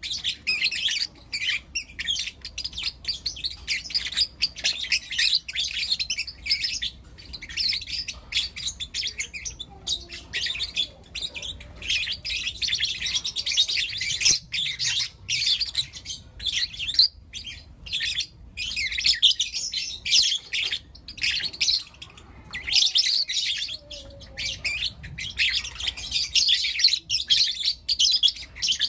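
Several young lutino lovebirds chirping constantly, with high-pitched calls in dense runs broken by brief pauses.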